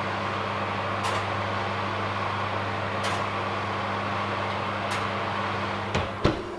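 Kitchen oven running with a steady hum and a faint tick about every two seconds; two sharp knocks near the end, after which the hum stops.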